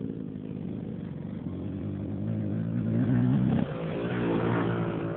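KTM 125cc two-stroke motocross bike revving as it rides, the engine note climbing and getting louder until about three and a half seconds in, when the throttle cuts off sharply, then picks up again.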